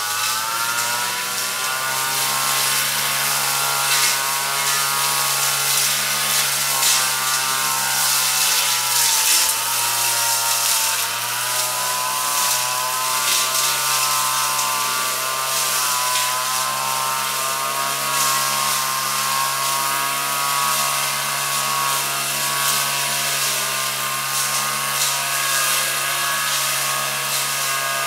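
Petrol brush cutter engine running at high revs while cutting dense weeds. Its pitch sags and recovers as it loads, most clearly around nine seconds in.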